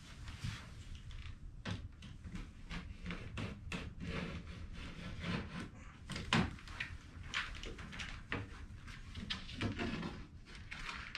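Razor knife drawn in repeated scratchy strokes along a straightedge, scoring through a sheet of shelf liner, with a few dull knocks as the straightedge and sheet are handled.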